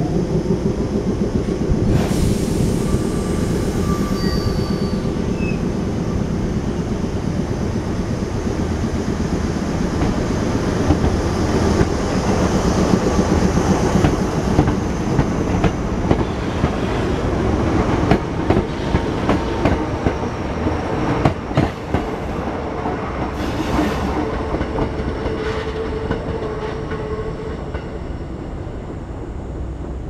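Sanyo Electric Railway electric train passing close by, its wheels clacking over rail joints, the clacks sharpest and most frequent a little past the middle, then the running noise easing off toward the end.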